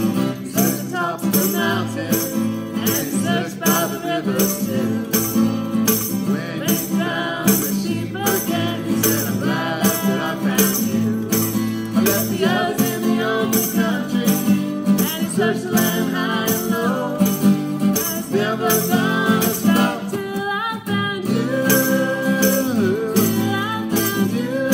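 A woman singing a children's song with strummed acoustic guitar accompaniment and a steady high rattle on the beat. The singing breaks briefly about 20 seconds in, then resumes.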